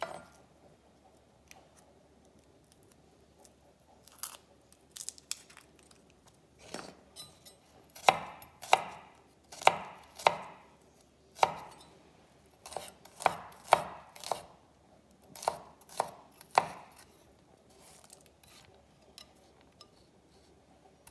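Chef's knife slicing garlic cloves on a wooden cutting board: a string of sharp knocks as the blade meets the board, about one or two a second. The knocks start a few seconds in and thin out near the end.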